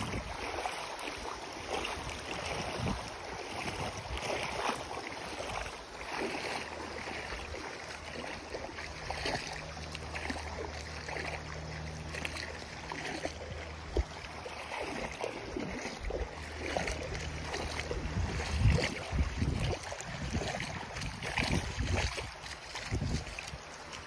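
Wind buffeting the microphone over shallow water lapping and trickling at the shoreline, with uneven low thumps that are strongest near the end. A steady low hum comes in for several seconds in the middle.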